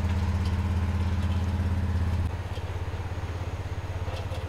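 An engine idling steadily, a low even drone with a fast regular pulse, dropping to a lower level about halfway through.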